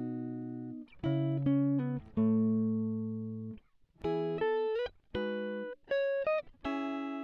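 Background instrumental music: a slow melody of single, sustained plucked-string notes, some sliding up in pitch, with a short pause about halfway.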